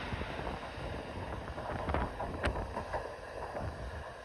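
Freight train's hopper wagons rolling past on the rails: a steady rumble with scattered wheel clacks and one sharp metallic click about two and a half seconds in, with wind buffeting the microphone.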